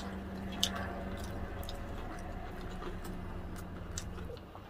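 Close-up eating sounds: chewing of fried chicken and rice with scattered soft mouth clicks, over a steady low hum that stops near the end.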